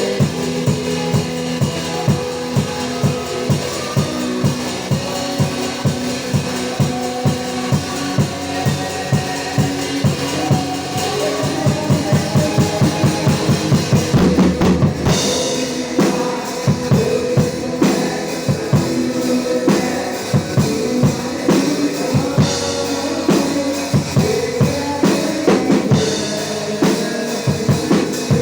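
Worship band music led by a drum kit: kick and snare keep a steady beat over held notes. About twelve seconds in, a run of rapid drum hits builds to a cymbal crash, then the steady groove returns.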